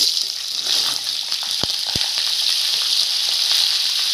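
Cauliflower florets and potato cubes dropped into hot oil with cumin seeds in a nonstick kadhai, setting off a sizzle that starts at once and holds steady. Two light knocks come in the middle of it, about half a second apart.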